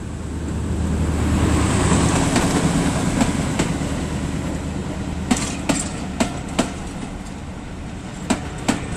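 Small diesel shunting locomotive passing close by with its engine running, the hum swelling and then fading as it goes away. From about five seconds in, the passing coaches' wheels click over rail joints in pairs.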